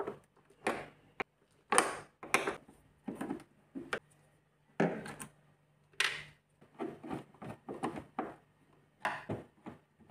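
Screwdriver working the refrigerator door's hinge screws loose: an irregular run of short clicks, knocks and scrapes of metal tool on screw heads and hinge.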